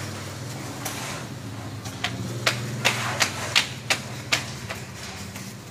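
Irregular sharp slaps of a child's sandals stepping on ceramic floor tiles, several a second from about two seconds in, over a steady low hum.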